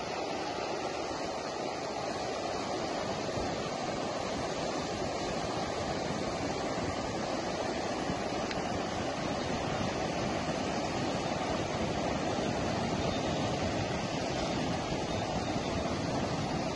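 Muddy floodwater rushing in a fast, turbulent torrent: a steady, deep rush of water that grows slightly louder toward the end.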